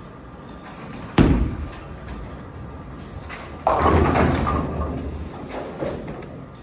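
Bowling alley sounds: a sharp bang about a second in, then a louder rolling rumble and clatter a few seconds in that fades away over about two seconds.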